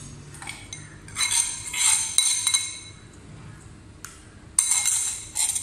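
Steel spoon clinking and scraping against a steel container and a stainless steel mixing bowl as paste is scooped out, a ringing metallic clatter about a second in and again near the end.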